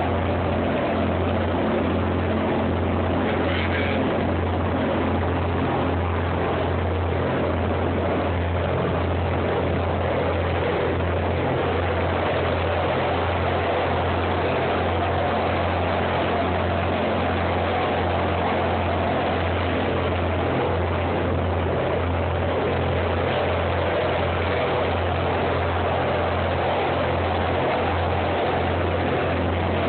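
A fishing boat's engine running steadily under way, a low drone with a slight regular pulse, over the rush of the wake and wind.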